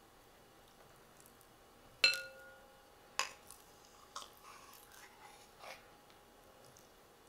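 A sharp clink about two seconds in, with a short ring, as a glass jar of melted coconut oil touches a stainless steel mixing bowl during pouring, followed by a softer click about a second later and a few light taps.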